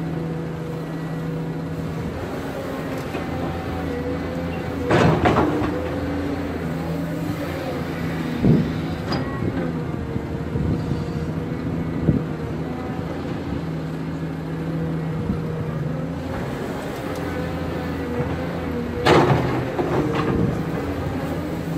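Cat 320 hydraulic excavator's diesel engine running steadily under load as it digs and swings. Twice, about five seconds in and again near the end, a bucketful of soil drops into the steel bed of a dump truck with a loud rush, and a few single knocks come in between.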